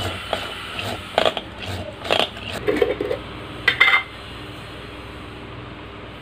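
A whisk knocking and clinking against a glass mixing bowl while batter is mixed: a handful of sharp strikes in the first four seconds, then only a steady low hum.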